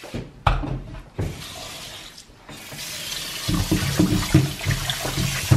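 Kitchen tap running into a bowl in a stainless steel sink, the water splashing over raw chicken breast as it is rubbed clean by hand. The water starts about two and a half seconds in, after a couple of knocks.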